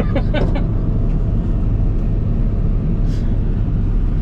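Combine harvester engine running steadily at working speed, a constant low drone, while corn is unloaded into a trailer alongside.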